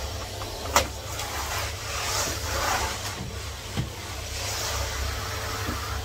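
Henry HVR200 620 W canister vacuum cleaner running steadily while its floor tool is worked over the floor. A sharp knock comes about a second in, and a softer one near four seconds.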